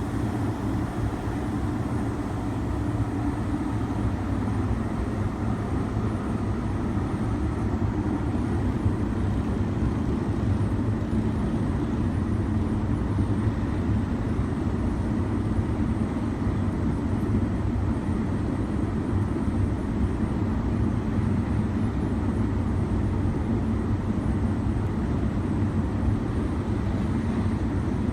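Ingersoll Rand IRN20H-CC 20 hp rotary screw air compressor running steadily, a continuous low hum with no changes.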